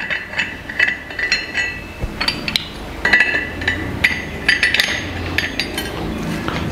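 Brass kuthu vilakku (oil lamp) parts clinking and ringing as the top ornament is handled and changed: a run of irregular small metallic knocks, each with a short ring.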